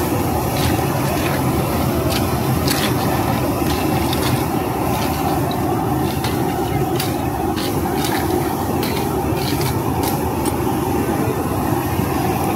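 Steady rushing of a high-powered gas wok burner, with scattered sharp metallic clinks of a spatula striking the wok.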